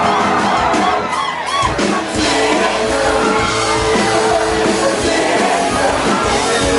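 Loud live band music with singing, and people yelling along.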